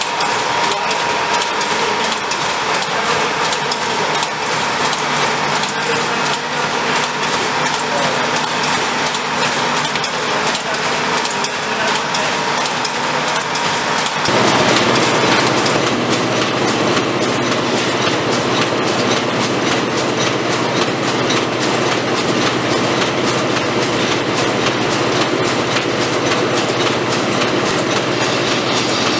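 Fully mechanical butter portion-pack filling, forming and wrapping machine running, with a rapid, even clatter of its cams and linkages. About halfway through the sound grows fuller, with a lower hum added.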